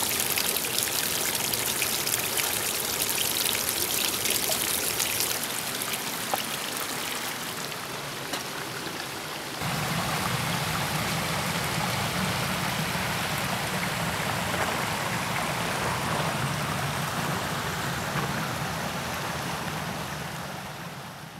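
Water spilling and dripping down a rock face into a pool, a bright splashing hiss with fine drips. About ten seconds in it changes abruptly to the steadier, lower rush of the Big Sur River flowing over rocks, which fades out at the end.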